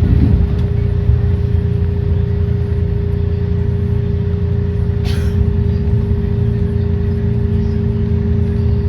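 SEPTA Kawasaki trolley car running, heard from inside: a heavy low rumble with a steady hum over it. About five seconds in, a brief high hiss cuts through for about half a second.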